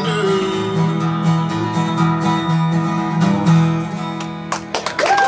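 Acoustic guitar playing the closing notes of the song, the last notes held and ringing. Audience applause breaks out near the end.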